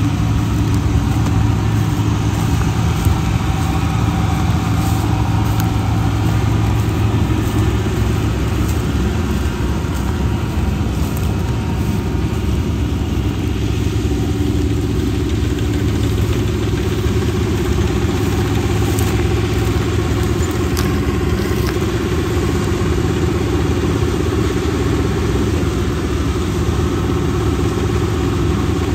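Combine harvester's diesel engine running steadily, an even drone that does not change speed.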